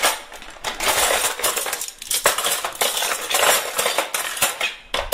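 Metal cutlery clinking and rattling together in a dense, irregular run of small sharp clinks.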